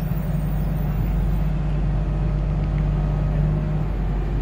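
Heavy diesel engine of a bored-pile drilling rig running steadily, a constant low drone.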